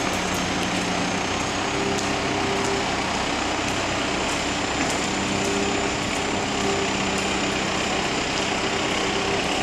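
Diesel engine of a utility truck with an aerial work platform running steadily, with a low hum that comes and goes.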